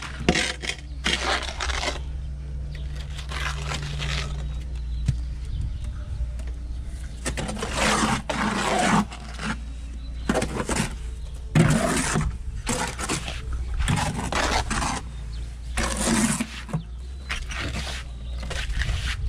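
Repeated scraping strokes of a trowel working cement onto a wall, each stroke about half a second to a second long and coming at irregular intervals.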